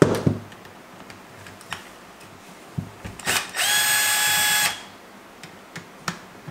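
Cordless drill/driver backing screws out of a two-stroke carburetor. A few clicks and knocks of the tool and carb being handled come first; about halfway through, the motor spins up, runs steadily for just over a second, and winds down.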